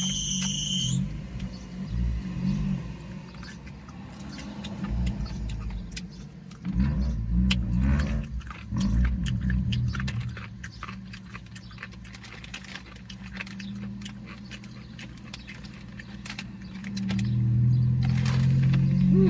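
Close-miked eating of rotisserie chicken: chewing with many wet mouth clicks and lip smacks, and fingers being licked, over a low hum.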